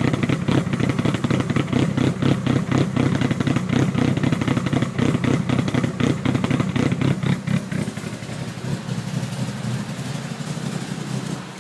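Mitsubishi Evo I's turbocharged 4G63T inline-four, fully forged and fitted with 264 cams, idling very roughly with an uneven, lumpy beat. About eight seconds in it turns quieter and smoother.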